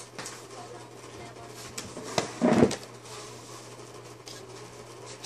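Handling noises as someone works at a table with a pair of test wires: scattered light clicks and knocks, and one brief loud noise about two and a half seconds in, over a steady low hum.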